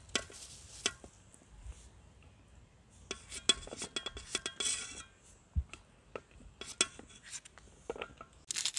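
Kitchen knife cutting chunks of raw pumpkin held in the hand over a steel tray, with crisp cuts and pieces dropping onto the metal. The sound is a scatter of small clicks and taps, busiest about three to five seconds in.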